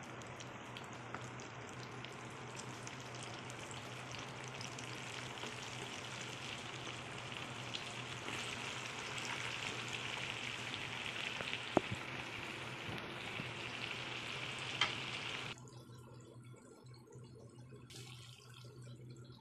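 Breaded shrimp deep-frying in hot oil in a pot: a steady sizzle that grows a little louder, with two sharp clicks in the second half. The sizzle drops away abruptly about three-quarters of the way through, leaving a faint low hum.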